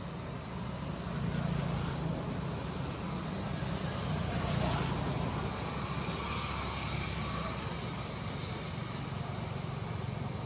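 Steady low background hum with an even hiss, and a brief louder burst of noise about four and a half seconds in.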